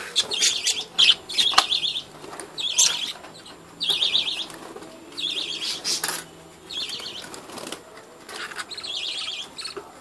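A flock of budgerigars chattering in repeated short bursts of fast, warbling twitter, with wing flutters as birds fly about the aviary. A few sharp clicks come through, from the wire mesh being handled.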